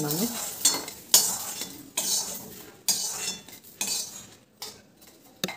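Metal spatula scraping and clattering against a steel wok while stirring green chillies and garlic frying in oil. The strokes come about once a second, each sudden and then fading.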